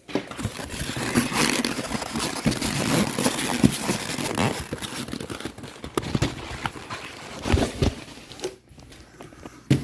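Packaging being handled: rustling, crinkling and scraping with many small knocks as a disposable shipping cooler and its ice packs are unpacked by hand. It dies down near the end.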